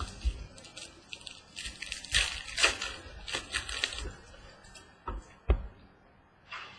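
Trading cards and pack wrapper being handled: rustling and sliding for the first few seconds, then two sharp taps about five seconds in.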